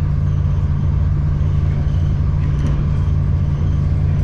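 Suburban electric train running, heard from inside the carriage: a steady low hum and rumble from the train's running gear and motors.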